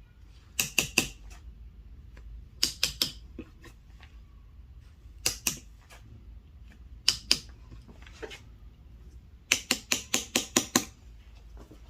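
Chisel driven with a mallet into ginkgo wood while carving a seal, sharp taps in quick bursts of two to seven with short pauses between, the longest run near the end.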